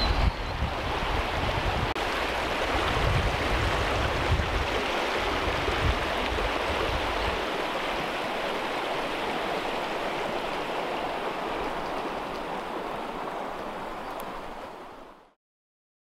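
Small upland stream running over stones: a steady babbling rush of water. A low wind rumble on the microphone sits under it for the first half, and the sound fades out about a second before the end.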